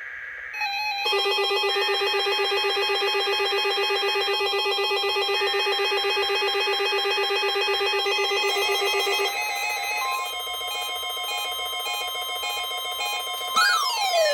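Weather radio alert test tones: a short stepping data burst, then a pulsing, buzzy electronic alarm for about eight seconds. It gives way to steady alarm tones, with the weather radio warning alarm tone held from about two-thirds of the way in, and a siren-like rising and falling wail starts just before the end.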